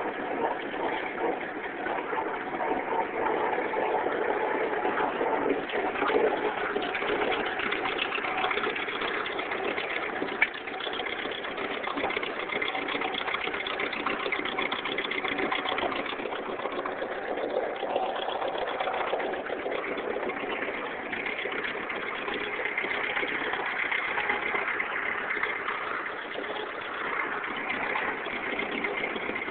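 Farmall B tractor's four-cylinder engine running steadily while the tractor drives along raking hay.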